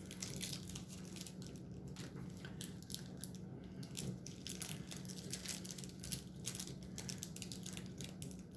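Trading cards and their packaging being handled: irregular light clicks and rustles, over a steady low hum.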